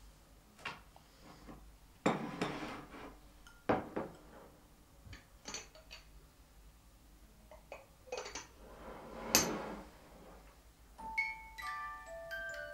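Crockery and cutlery clinking and clattering as a plate with a fork, a teacup and a teapot are handled on a table, in separate knocks and short rattles. Near the end a melody of high single notes begins.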